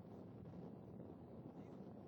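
Faint, steady low rumble of wind buffeting the microphone.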